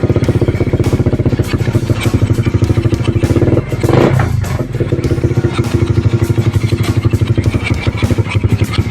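Bored-up Suzuki Raider 150 single-cylinder four-stroke engine, with a 68 mm bore and a 34 mm carburetor, running with a fast, even train of firing pulses. The throttle is blipped about four seconds in, and the pitch rises briefly.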